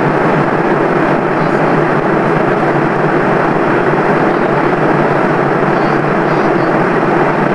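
Steady cabin noise inside an airliner descending to land: an even rush of engine and airflow with a faint steady hum running through it.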